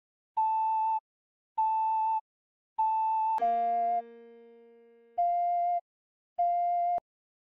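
Ocarina playing a slow, even melody of single held notes, about one every 1.2 seconds: three on A, then about a third of the way in it drops to F and repeats that. A chord is struck once with the first F and held under it for about two seconds.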